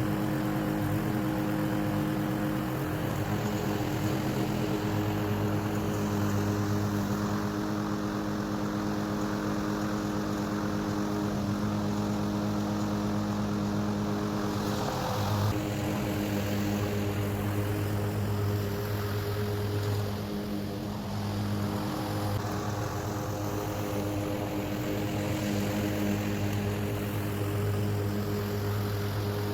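Masport Rotarola rotary lawn mower's petrol engine running steadily under mowing load, with a brief louder rush about halfway through.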